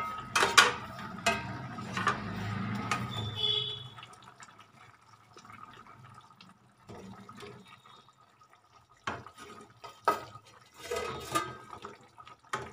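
Wooden spatula stirring a wet potato curry in a steel pan: squelching and scraping, with sharp knocks against the pan near the start and a few more later on.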